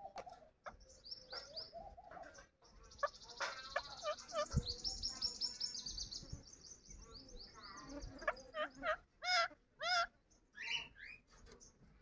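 Yellow Indian ringneck parakeet chirping and chattering: a fast, high trill for the first half, then several short, louder sharp calls in the second half.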